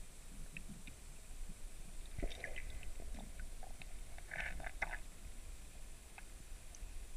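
Muffled underwater sound picked up by a submerged camera in a freshwater pool: a steady low rumble with scattered small clicks and crackles, thickest about two seconds in and again around four and a half seconds.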